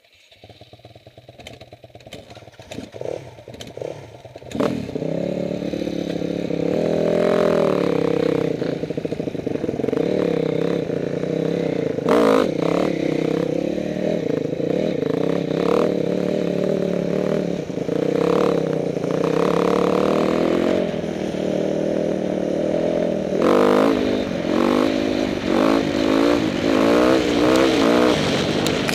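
Dirt bike engine heard from the rider's helmet, pulling away and riding a gravel road, its pitch rising and falling as it revs through the gears. It starts faint and becomes loud about four and a half seconds in, with clattering knocks from the bike over the gravel.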